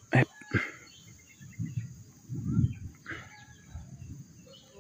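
Hands working at the cut end of a sugar palm flower stalk: two sharp knocks in the first second, then handling and rustling that is loudest a little past halfway. Birds call briefly throughout.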